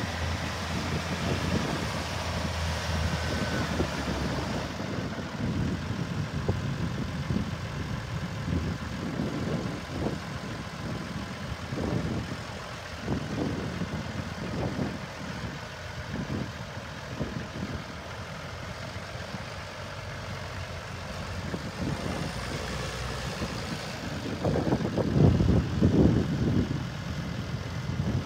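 New Holland T7030 tractor's 156 hp diesel engine running at low speed as the tractor drives slowly across the yard, with an uneven low rumble that gets louder for a few seconds near the end.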